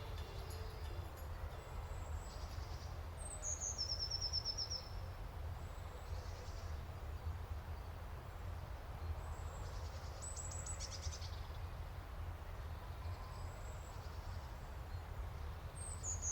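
Outdoor birdsong over a steady low rumble: short, high chirping phrases every few seconds, including a quick descending trill about four seconds in and a rapid run of notes about ten seconds in.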